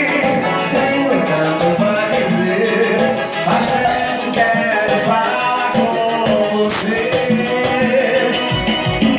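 Music: a Brazilian party song playing at a steady, loud level, a stretch with melodic lines over a steady beat and no clear sung lyrics.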